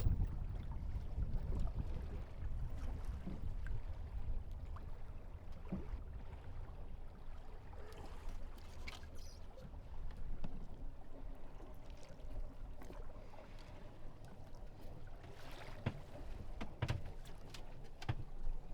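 Water swishing and trickling along a small sailboat's hull as it sails, over a low wind rumble, with occasional light knocks.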